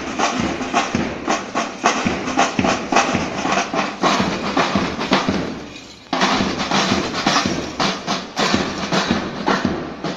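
A student drum band playing side drums and hand cymbals in a fast, steady beat. The playing fades away a little past halfway and starts up again sharply.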